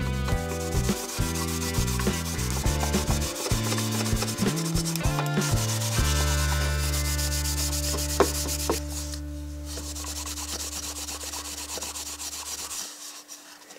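Background music with a stepping bass line that settles into a long held chord and stops near the end, over a steady rubbing hiss with short scratchy strokes, like sandpaper worked over wood by hand.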